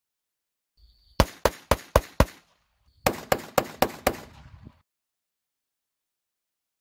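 Unsuppressed Smith & Wesson M&P 22 Compact .22 LR pistol with a 3.6-inch barrel, fired in two quick strings of five shots each, about four shots a second, with a short pause between the strings.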